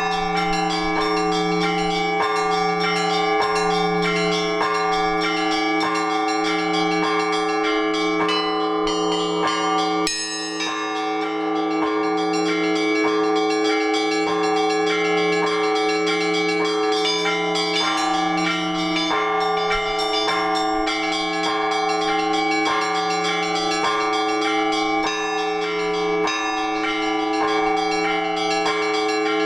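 Orthodox church bell ringing (zvon) from a belfry: several bells of different sizes struck in a quick repeating pattern over a low bell sounding at a steady beat. There is a short lull about ten seconds in, then the ringing picks up again.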